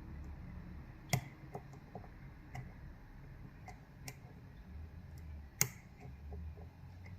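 Small metallic clicks and ticks of a lock pick working the pins inside a Yale 2100 lock cylinder, with two sharper clicks, one about a second in and one a little past halfway.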